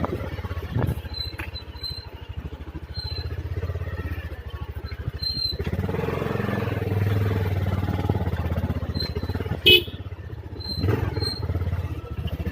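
Bajaj Pulsar 220F's single-cylinder engine running steadily as the motorcycle is ridden, growing louder about halfway through. A single sharp knock about ten seconds in.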